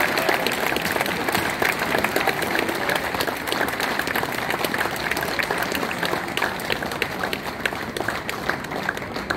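Crowd of spectators applauding, a dense patter of many hands clapping that eases off near the end.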